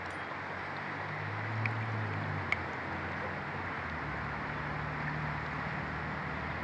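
Steady rush of river current flowing past, with a faint low hum that comes and goes and a couple of small clicks.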